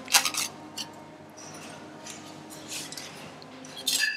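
Metal spatulas scraping and clinking against a metal baking tin as a baked stuffed zucchini is lifted out, a few scattered clicks. Near the end comes a sharper clink with a brief ring as the spatulas touch down on a ceramic plate.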